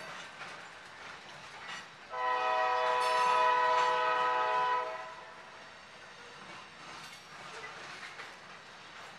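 Locomotive air horn sounding one long, steady blast of about three seconds, starting about two seconds in. Underneath, freight cars roll past with faint clicks of wheels over the rail joints.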